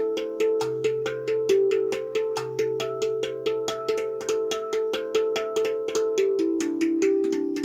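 Tonedrum Sequoia steel tongue drum played in a quick, even run of notes, about four or five strikes a second, each note ringing on and overlapping the next. A deeper bass note rings underneath through roughly the first half.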